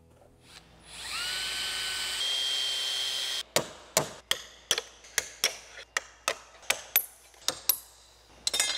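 A power drill spins up with a rising whine and runs steadily for about two seconds. Then a hammer strikes a punch held against a metal aircraft bracket, a dozen or so sharp, evenly paced blows, about two to three a second.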